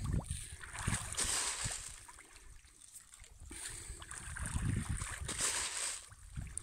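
Wind gusting on the microphone at a trout pond, with rainbow trout splashing at the surface and two stretches of louder splashing and hiss, about a second in and again near the end.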